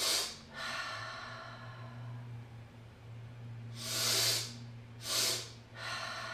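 A person doing cyclic sighing: a long, slow exhale through the mouth, then a two-part inhale through the nose heard as two short, sharp sniffs about a second apart, and the next long exhale starting near the end.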